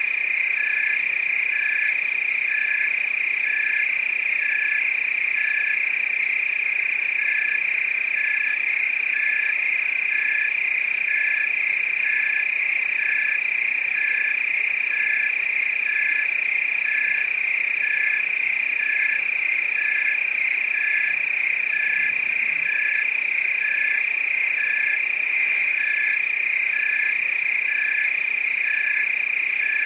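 Night chorus of crickets and frogs: a steady, continuous high trill with a regular pulsed call repeating about twice a second.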